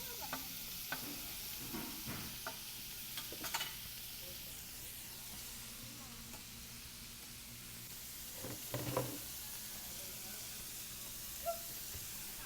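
Pork belly sizzling steadily on a large iron griddle, with scattered clicks and scrapes, the loudest cluster about nine seconds in.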